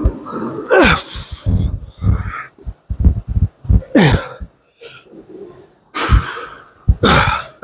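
A man grunting and blowing out hard breaths with the strain of each rep on a cable back exercise: a string of separate breathy bursts, several of them with a groan that drops in pitch.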